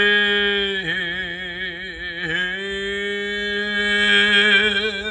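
A single voice holding one long sung note of traditional Korean vocal sori, with a wavering vibrato and two brief dips in pitch about one and two seconds in.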